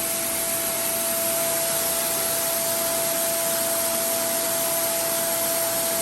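Spindle of a Fanuc Robodrill T21iFL CNC machining center spinning steadily at 20,000 RPM: a steady high whine over an even hiss.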